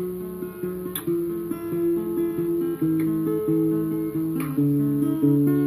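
Acoustic guitar playing a picked riff: overlapping single notes and two-note shapes that change every fraction of a second, ringing on under each other.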